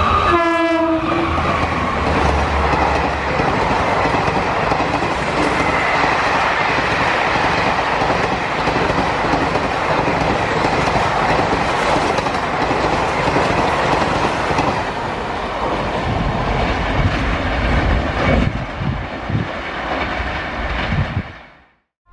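Electric-hauled Indian Railways express train passing at speed. A horn blast ends in the first second, then a long loud rush of wheels and coaches on the rails follows. Wheel thumps run in the last few seconds before the sound fades away.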